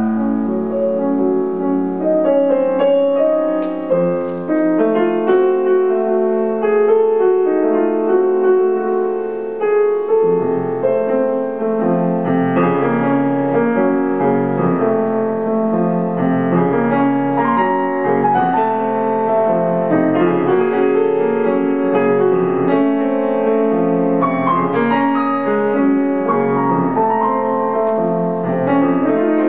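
Grand piano played solo in a continuous passage of many ringing, overlapping notes, mostly in the middle register.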